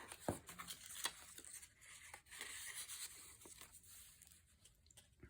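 Faint rustling and light ticks of paper as journal pages, a bookmark and a tag are handled and turned, with a few sharper taps in the first second or so.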